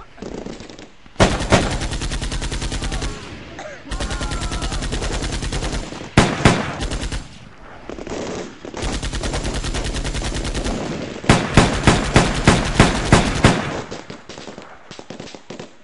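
Automatic gunfire in long sustained bursts, then a run of about eight louder separate shots near the end.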